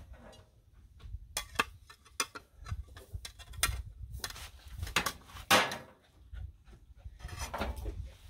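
Metal griddle spatula clinking and knocking against a plate as a grilled sandwich is set onto it: a series of sharp clicks, the loudest about five and a half seconds in, over a low rumble.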